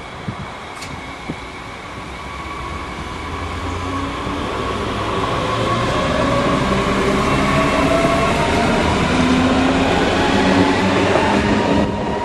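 Red Deutsche Bahn Class 422 S-Bahn electric multiple unit running past along the platform, growing steadily louder as it comes alongside. Wheels rumble on the rails under a whine that slides slowly down in pitch, with a few sharp knocks in the first second or so.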